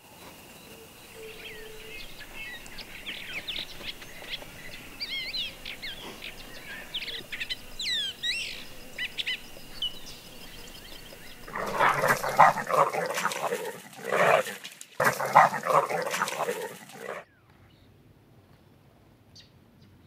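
Birds chirping and calling over a steady high tone. About halfway through comes a much louder run of grunting, bark-like calls from a collared peccary (javelina), which cut off suddenly after about five seconds.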